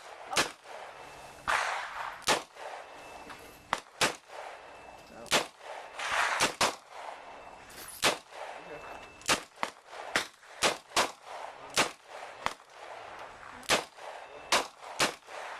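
Handgun shots at a shooting range: about twenty sharp cracks at irregular intervals, some louder and some fainter, from more than one shooter firing at once.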